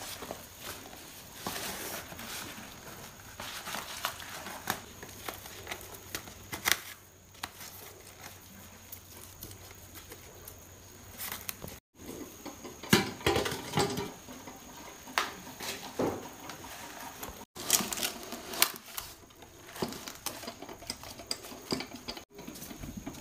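Banana leaves rustling and crackling in the hands as they are folded and tied into a parcel around a fish, in irregular crisp clicks, with a few louder knocks about halfway through.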